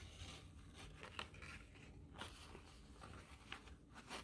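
Faint rustling of cloth and a thin plastic mask being handled, with a few light clicks.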